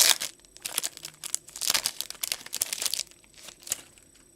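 Trading-card pack wrapper being torn open and crinkled by hand: a run of irregular crackling rustles that thin out near the end.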